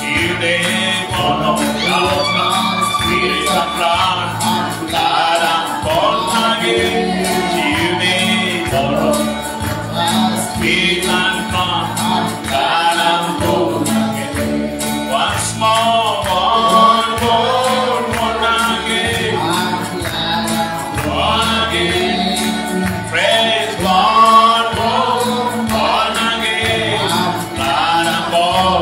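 Gospel worship song: several voices singing together over a band with a steady beat.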